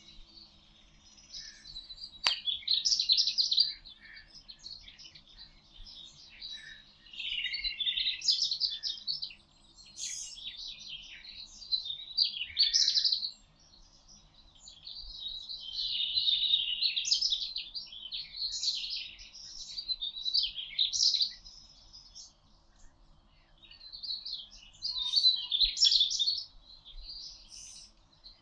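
Songbirds singing in the forest: bouts of high, quick chirping song lasting a few seconds each, with short pauses between.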